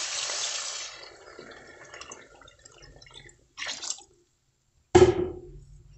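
Water poured from a jug into a hot pot of sautéed shrimp and vegetables, splashing loudly for about the first second and then tapering off into faint drips and liquid sounds. A sudden knock comes about five seconds in.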